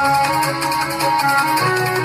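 Recorded instrumental dance music with plucked string melody notes over a steady low accompaniment.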